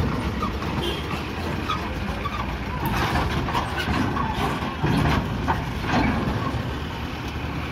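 Truck engine running as a loaded small cargo truck rolls slowly across a ferry pontoon's steel ramp, with a few knocks from about three seconds in and people's voices in the background.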